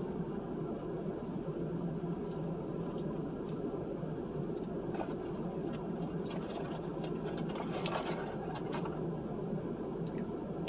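Mukbang eating sounds: scattered small clicks and crinkles of chewing and handling fast food and its wrappers, over a steady low hum.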